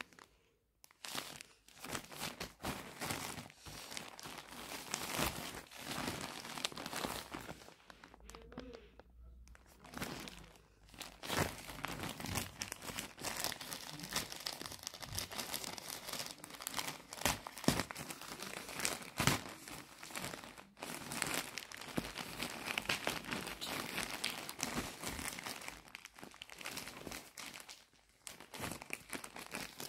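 Grey plastic courier mailer bag being handled, crinkled and torn open by hand, making irregular crackling and rustling with sharp crackles and a couple of short pauses.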